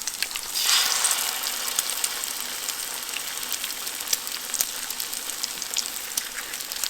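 Food frying in a pan for a camp breakfast: a steady sizzle with small crackles and pops. It grows louder about a second in.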